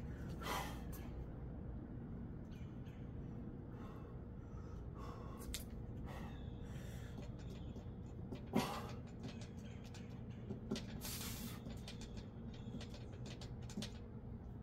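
A man breathing hard while doing bodyweight dips: a few short, noisy breaths several seconds apart, the loudest about eight and a half seconds in, over a steady low outdoor rumble.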